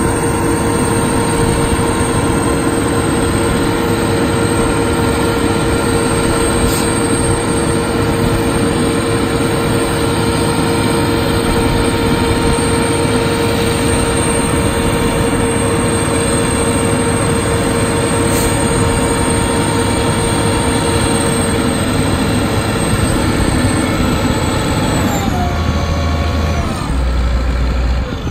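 Terex T560 truck crane running hard with a steady whine as its boom and hook are worked. About 25 seconds in the pitch drops as the engine slows, and a heavier low rumble follows near the end.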